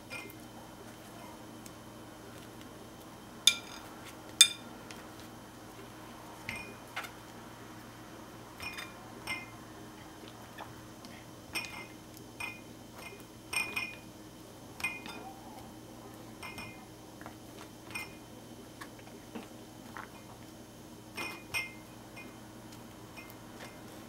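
Wooden chopsticks clinking against a ceramic bowl while soft microwaved eggplant pieces are turned over: scattered short, sharp clinks with a brief ring, the two loudest about three and a half and four and a half seconds in.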